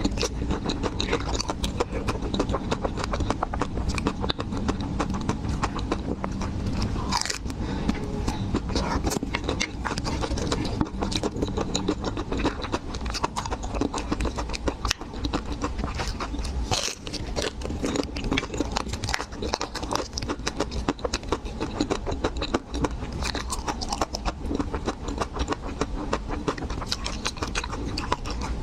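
Close-miked ASMR eating of chocolate-coated Magnum ice cream bars: a dense, continuous run of crisp crunching bites into the hard chocolate shell, with chewing.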